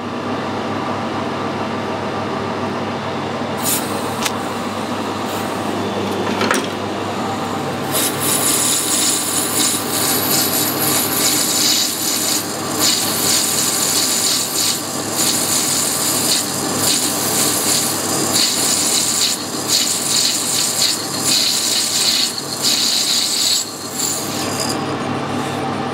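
Metal lathe running with a bearing-bronze sleeve spinning in the chuck, with a steady hum. From about eight seconds in, a boring bar cuts inside the bore with a harsh, high-pitched scraping that rises and dips, and it stops shortly before the end.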